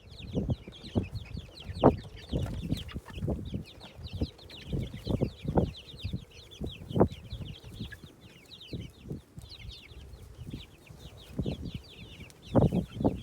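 A flock of young layer chicks peeping continuously, with many short, high, falling chirps overlapping. Irregular low thumps and rumbles run underneath.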